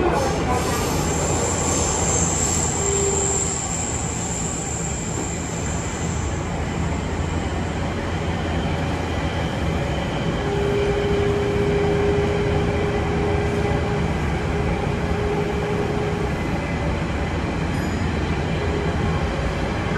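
Running noise inside a Nagoya Municipal Subway 6000 series car, set 6120H with original Toshiba GTO-VVVF equipment: a steady rumble of wheels and running gear through the tunnel. A thin high tone fades out over the first several seconds, and a steady mid-pitched whine sounds for several seconds past the middle.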